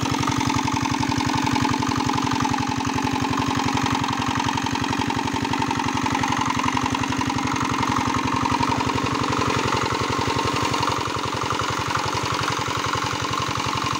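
Single-cylinder diesel shallow-machine engine running steadily with a fast, even knock, driving a pump whose jet of water splashes back onto the pond. The pump is throwing pond water into the air to aerate the pond for the fish.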